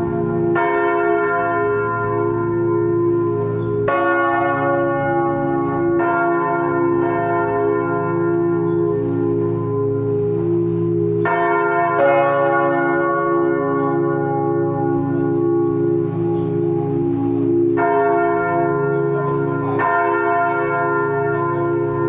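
Several large church bells swinging and pealing, heard close up from inside the belfry. Fresh clapper strokes land every few seconds over a lasting, overlapping hum of the bells' ringing.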